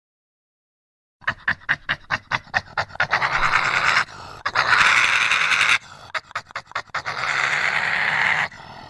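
Heterodontosaurus sound effect: a rapid run of short, breathy panting puffs, about five a second, broken by three longer hissing breaths, starting about a second in.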